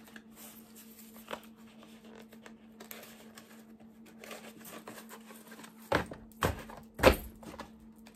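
Cardboard perfume packaging being handled: faint rustles, then three sharp knocks near the end, the last the loudest, as the perfume bottle is fitted into its box. A steady low hum runs underneath.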